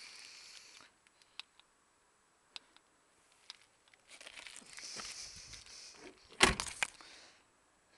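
Rustling and handling noises with a few scattered sharp clicks, and a loud knock about six and a half seconds in.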